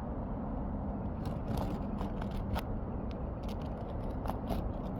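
Asphalt roof shingles being cut into: short scrapes and clicks at irregular intervals over a steady low rumble.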